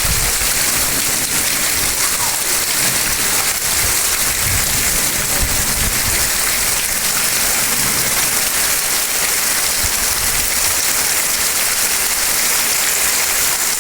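Heavy rain pouring steadily, an even hiss of rainfall, with a brief low rumble about four to five seconds in.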